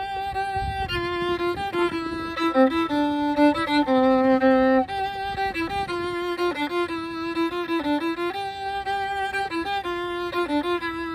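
Solo violin playing a slow melody of held single notes that move up and down step by step.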